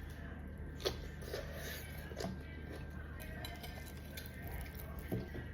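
Eating at a plate: utensils clinking against the dish in a few sharp strikes, about a second in, after two seconds and near the end, over a steady low hum.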